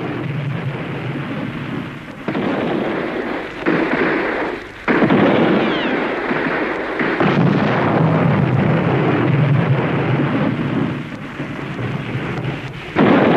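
Artillery barrage: a continuous loud rumble of shell bursts and gunfire, jumping sharply in loudness several times in the first five seconds.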